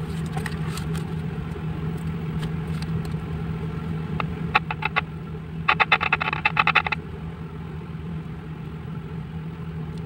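Paper-cone loudspeaker clicking and crackling as a battery's leads are touched to its terminals: scattered sharp clicks, then a dense burst of scratchy crackles about six seconds in. This crackle is the sign of a working speaker. A steady low hum runs underneath.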